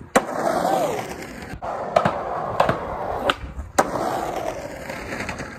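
Skateboard landing off a curb with a sharp clack just after the start, then its wheels rolling over rough asphalt, with several more sharp clacks along the way.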